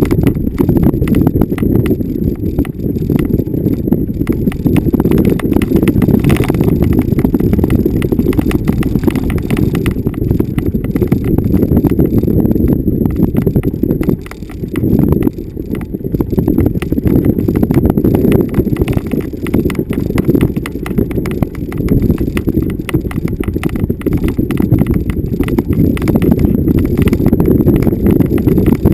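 Vehicle driving over bumpy off-road ground: a continuous low rumble packed with jolts, knocks and rattles, easing briefly about halfway through.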